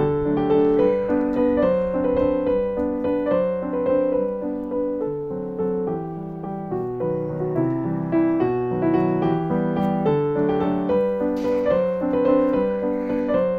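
Background piano music: a steady run of notes played one after another.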